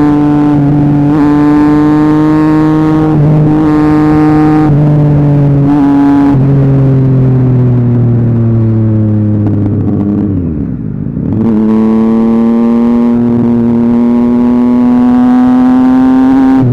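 Triumph Street Triple 675's inline three-cylinder engine ridden with no exhaust, pulling at steady revs. Past the middle the note sinks slowly as the revs fall, dips sharply about two-thirds of the way through, then climbs again gradually.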